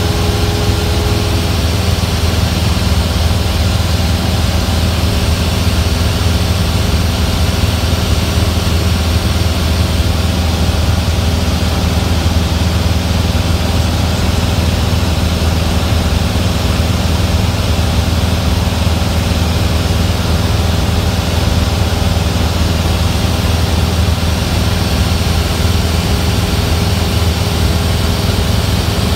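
Cessna's single piston engine and propeller droning steadily in flight, heard inside the cabin, with a strong low hum and unchanging power.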